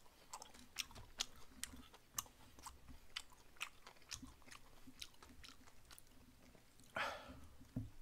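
Quiet close-miked chewing of stir-fried gopchang and glass noodles: wet mouth clicks and smacks, a few a second, irregular. A short breathy rush about seven seconds in.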